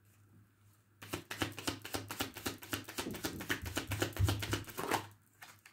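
A deck of tarot cards being shuffled by hand: a rapid run of soft card clicks that starts about a second in and stops near the end.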